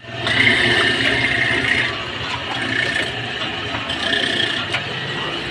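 Motor-driven coconut grinder running steadily, a constant motor hum under the rasping hiss of coconut being ground.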